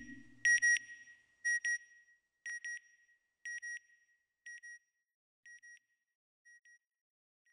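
Electronic double beeps, about one pair a second, fading away pair by pair like an echo. This is a satellite-signal style sound effect in the closing logo sting. A low whoosh dies away just as the beeps begin.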